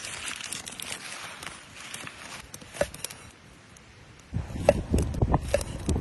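Papery sausage casing crinkling and tearing as it is peeled off by hand. Then, about four and a half seconds in, a cleaver cuts through the sausage onto a wooden board with a few sharp knocks.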